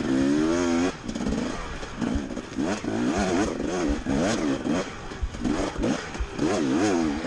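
Enduro dirt bike engine revving up and down in quick, repeated throttle bursts, its pitch rising and falling about twice a second.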